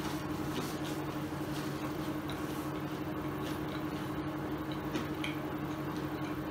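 A steady low hum at two pitches, with a few faint short crunches and clicks from a man chewing crispy fried mushroom chips.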